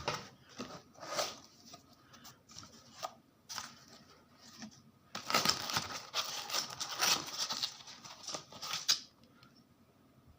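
Speaker packaging being handled and opened: scattered rustles and knocks, then about four seconds of continuous rustling and tearing from about five seconds in, which stops abruptly.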